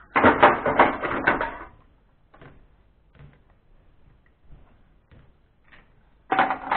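Small pieces of scrap steel clattering into a bucket, a dense rattle of metal on metal, then a few light scattered clicks and knocks, and another burst of clattering near the end.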